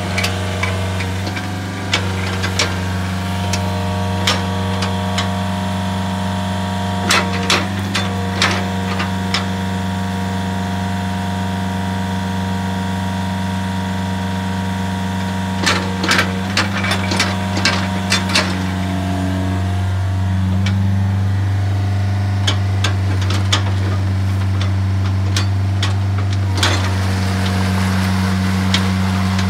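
Komatsu PC50MR mini excavator's diesel engine running steadily as the machine swings and works its boom, with clusters of sharp knocks at a few points. The engine gets a little louder about two-thirds of the way through.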